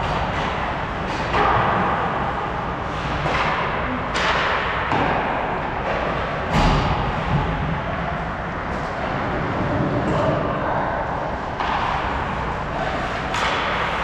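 Ice hockey play: a continuous scraping haze of skates on ice, broken by sharp knocks and thuds of sticks, puck and boards. The loudest hits come about four and six and a half seconds in.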